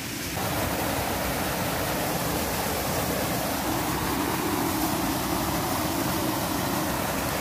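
Steady rush of flowing stream water close to the microphone, growing louder in the first half second and then holding even.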